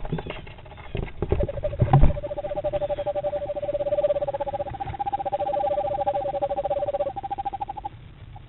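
A pair of eastern screech owls trilling together in the nest box: two steady monotone trills, one lower and one higher, overlapping for about six seconds. A few knocks and scrabbles in the first two seconds come as the second owl enters the box.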